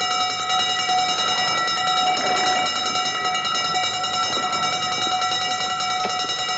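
An alarm sounding a steady, unbroken tone, with a few faint knocks underneath.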